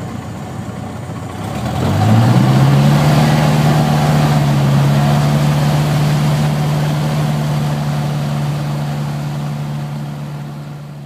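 Cessna 150's Continental O-200 four-cylinder engine running, heard inside the cockpit while taxiing. About two seconds in, the engine note rises as power comes on, then holds steady and slowly fades toward the end.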